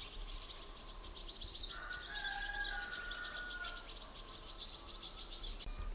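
Small birds chirping rapidly and continuously, with a fainter, lower drawn-out call about two seconds in.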